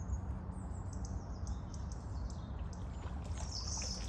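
Small birds chirping and calling, with short high chirps through the first half and a brighter call near the end, over a steady low rumble.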